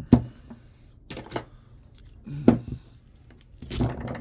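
Light metallic clinks and knocks of hand tools (screwdriver and cutters) working copper windings out of an electric motor: a sharp knock at the start, a couple of clinks about a second in, another a little past halfway, and a brief scraping rattle near the end.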